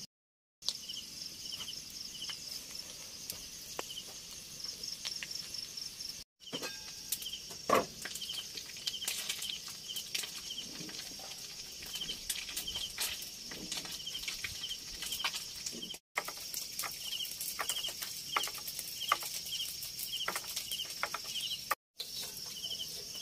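Insects chirping and droning: a steady high-pitched insect whine with a cricket's pulsed chirp repeating about three times every two seconds, over scattered light clicks and one louder knock about eight seconds in. The sound cuts out to silence briefly four times.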